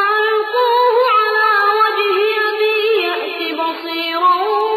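A Quran reciter's high, melodic voice chanting in tajweed style, holding long drawn-out notes that waver and slide between pitches.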